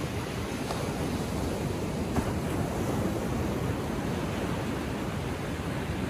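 Atlantic Ocean surf breaking and washing on the beach, a steady rushing that swells a little a couple of seconds in.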